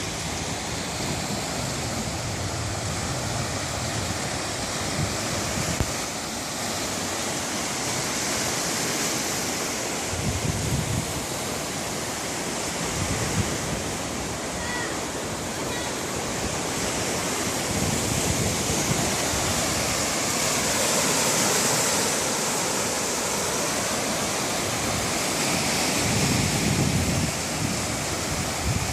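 Sea waves breaking and washing on the shore: a continuous rush of surf that swells and eases every several seconds.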